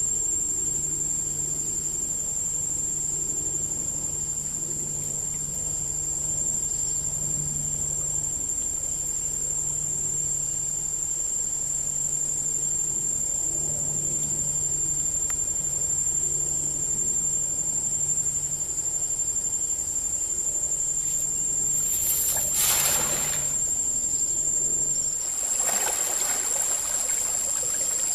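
A chorus of crickets or cicadas shrilling steadily on one high-pitched tone. A short rush of noise comes about 22 seconds in, and a steady rushing, water-like noise takes over for the last few seconds.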